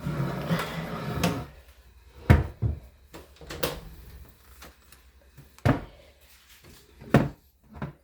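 A chair being pulled into place, a scraping noise lasting about a second and a half, followed by about six separate knocks and thumps of furniture and objects being handled.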